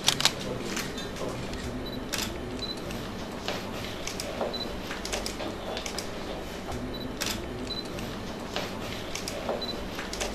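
Several camera shutters clicking at irregular intervals as a posed group is photographed, with short high beeps here and there between the clicks.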